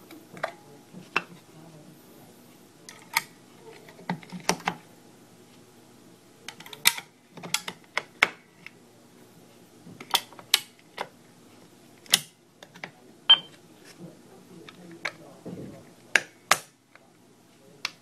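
Irregular plastic clicks and knocks as the Byron Sentry wireless doorbell's chime unit is handled: its back cover is taken off and C batteries are pushed into the battery compartment.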